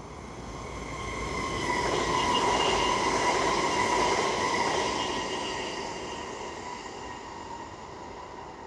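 Mälartåg ER1 double-deck electric multiple unit passing by. Its sound builds to a peak over about two seconds, holds, then fades as it goes, with a steady high whine over the wheel-and-rail noise.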